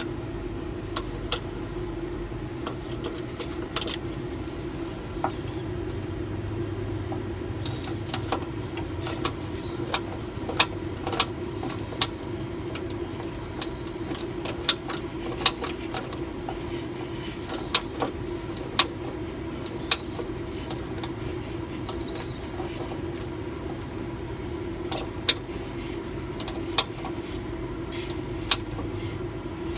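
Scattered metallic clicks and clinks of hand tools and fittings as air-line connections on a bus's front airbag are fitted and tightened, over a steady background hum.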